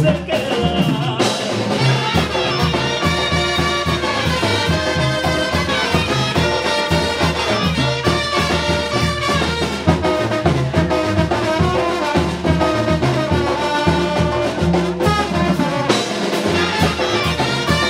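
Live Mexican banda music: trumpets and trombones play over a sousaphone bass line and drums, with clarinets, to a steady beat.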